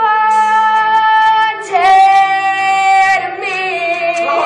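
A 12-year-old girl's solo singing voice holding long notes: one steady note, a brief break about a second and a half in, then a louder held note that steps down lower near the end.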